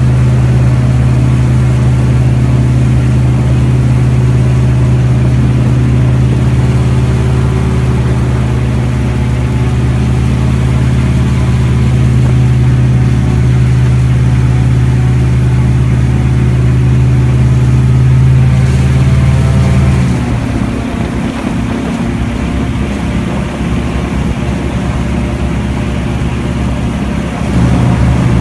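Airboat engine and propeller running at speed, a loud steady drone. About two-thirds of the way through the drone drops in level and turns rougher, then picks back up just before the end.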